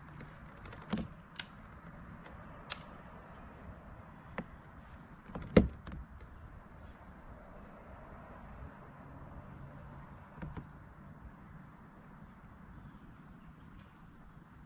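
Steady high-pitched chorus of insects, cricket-like, with a few scattered sharp knocks; the loudest knock comes about five and a half seconds in.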